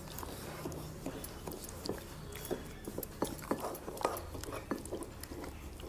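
Faint, irregular light clicks and taps of kitchen utensils against a bowl as milk is added to semolina, about one or two a second.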